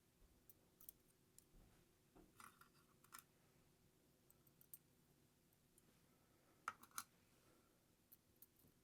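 Faint small clicks and taps of metal lock parts being handled while springs are loaded into a Medeco Protector II padlock cylinder, with two sharper clicks about seven seconds in.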